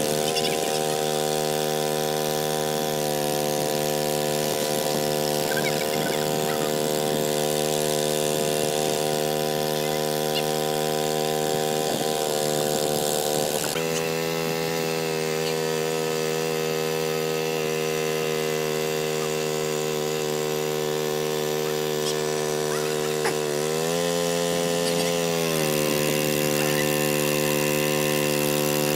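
A small engine running steadily at a constant speed. Its pitch rises briefly about 24 seconds in and then settles back.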